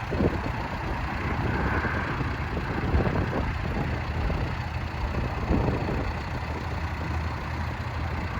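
John Deere 310SK backhoe loader's diesel engine idling steadily, running smoothly and fairly quietly.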